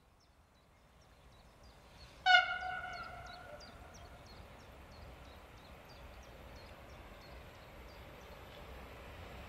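Siemens Vectron electric locomotive's horn gives one sharp blast about two seconds in, dipping slightly in pitch and fading over about a second: the Rp1 warning signal to people near the track. Afterwards the coal train's running noise slowly grows as it approaches.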